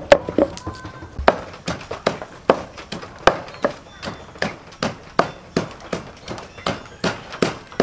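Wooden pestle pounding garlic in a large wooden mortar: a steady run of dull knocks, about two and a half a second.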